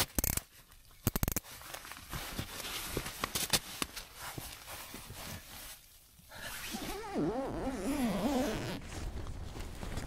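Nylon waterproof clothing and tent fabric rustling and a zip being pulled, with two sharp clicks in the first second and a half. A brief wavering hum comes about seven seconds in.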